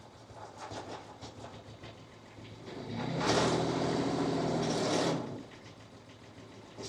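Small diesel engine of a compact machine revving up under load for about two seconds, then dropping back to a low, rattly idle.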